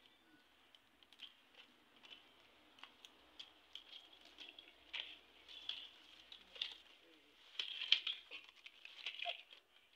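Coconut-frond leaflets clicking and rustling as they are lifted, folded and woven over one another by hand. There are many short, scattered crackles, with the loudest cluster about eight seconds in.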